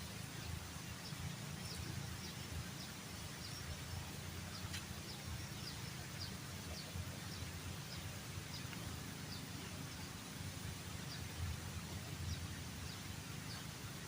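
Rainforest ambience: a bird repeats short, high, falling chirps, two or three a second, over a steady low rumble.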